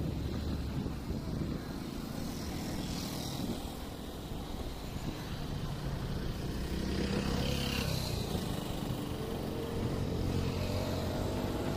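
A boat's engine running steadily with a low rumble, growing a little louder past the middle.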